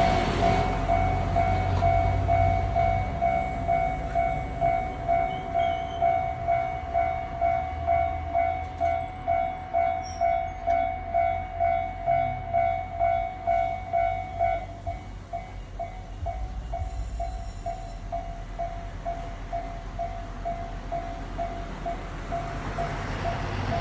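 Japanese railroad crossing alarm clanging in an even rhythm of about two strikes a second, growing fainter about two-thirds of the way through. Under it a Kumamoto Electric Railway 03-series electric train rumbles past.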